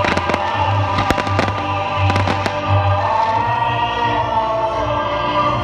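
Fireworks popping and crackling in quick succession, the pops thinning out after about two and a half seconds, over music with long held notes.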